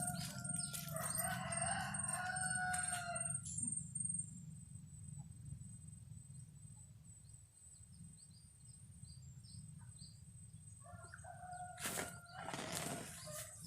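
A rooster crowing twice: one long crow at the start lasting about three and a half seconds, and another about eleven seconds in, over a low steady rumble.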